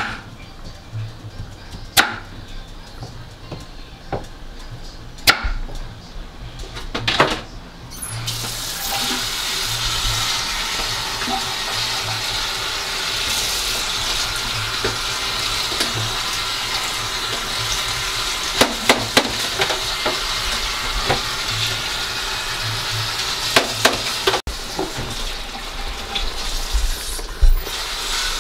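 A knife cutting squash on a wooden cutting board, a few single knocks, then a kitchen tap running into a stainless-steel sink for about sixteen seconds, with a few clinks as things are rinsed under it.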